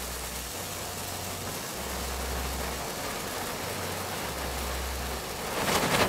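Red Geysir ground fountain firework burning with a steady hiss. Near the end it swells louder with rapid crackling as it flares into its crackling finale.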